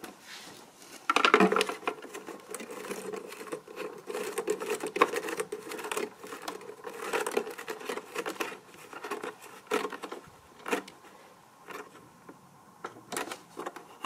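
Irregular clicking, scraping and rubbing of plastic as a motor-protection filter pad is pushed into place behind the ribbed grille inside the plastic body of a Miele S224 vacuum cleaner. The loudest scrapes come about a second in, and the handling eases off a couple of seconds before the end.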